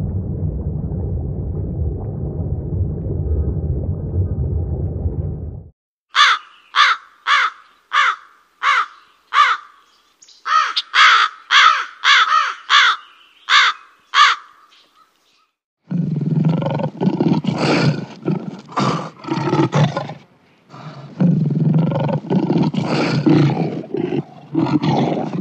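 About six seconds of low steady underwater rushing, then a rook giving a rapid series of harsh caws, about two a second. Then a lion roaring in two long bouts, the second running up to the end.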